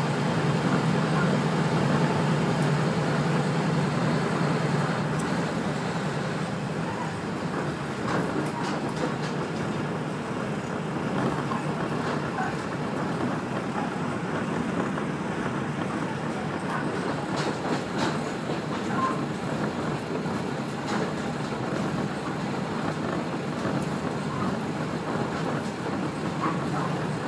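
Kashima Rinkai Railway 6000 series diesel railcar running, heard from inside the car: a steady engine drone and rolling rail noise with scattered light clicks from the track. The engine hum is strongest over the first few seconds, then eases slightly.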